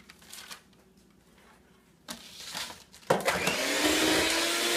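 Electric hand mixer switched on about three seconds in and running steadily, its beaters working flour and cake mix into the butter-sugar dough in a stainless steel bowl, its pitch rising slightly as it runs.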